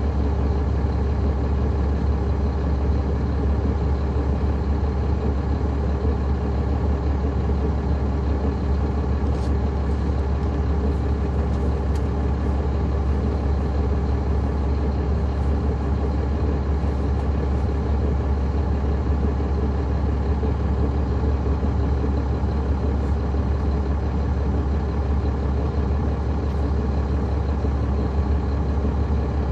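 Caterpillar C13 ACERT inline-six diesel engine of a NABI 40-SFW transit bus, heard from on board the bus, running at a steady, unchanging speed with a deep low hum.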